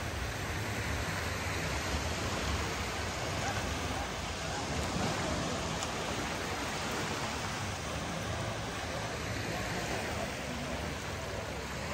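Beach ambience: small sea waves washing onto the sand in a steady hiss that gently swells and eases.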